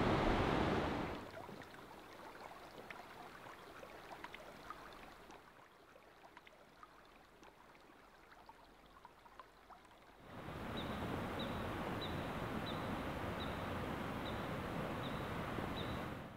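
Steady rush of stream water that drops away after about a second to faint ambience with scattered small ticks, then returns about ten seconds in. Over the returning rush, a high chirp repeats about every two-thirds of a second, and the sound cuts off suddenly at the end.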